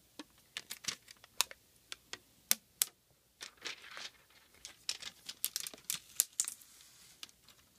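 Protective plastic film being peeled off the glossy casing of an Apple AirPort Extreme router: a run of irregular sharp crackles and crinkles, coming thickest in the second half.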